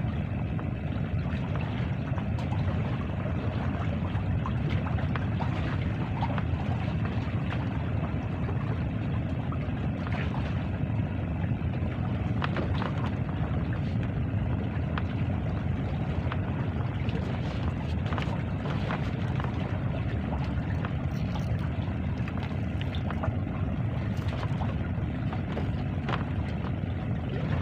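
Steady low rumble of wind and sea, even throughout, with a few faint clicks.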